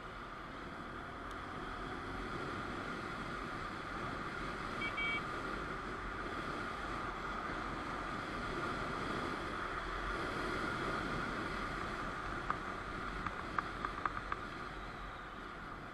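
Steady wind and riding noise of a moving motorcycle picked up by its mounted camera, with two short high beeps about five seconds in and a handful of sharp clicks near the end.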